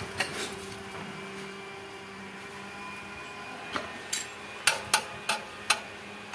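Hand tools clicking and knocking against metal parts during a motorcycle repair: about six sharp knocks in the second half, over a steady low hum.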